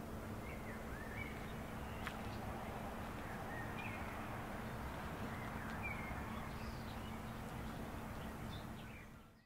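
Lakeside outdoor ambience: scattered short bird chirps over a steady low background rumble, fading out near the end.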